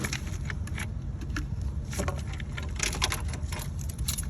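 Scattered clicks and light rattles of parts being handled in a car's engine bay, over a steady low rumble.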